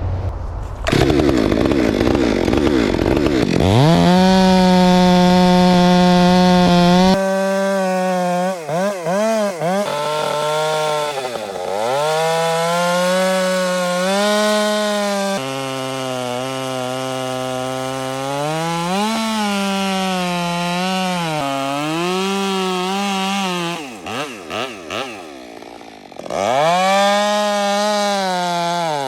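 Two-stroke chainsaw revved to full throttle and cutting into very hard Australian pine; its engine pitch sags again and again as the chain bites and loads up, then recovers. Around three-quarters of the way through it eases off with a few short blips, then revs up once more.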